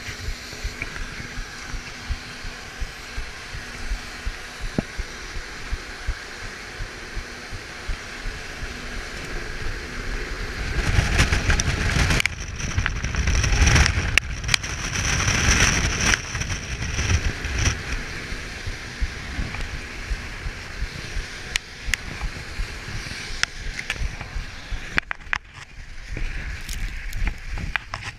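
A person's steady footsteps climbing through snow, with a louder stretch of rushing noise about halfway through.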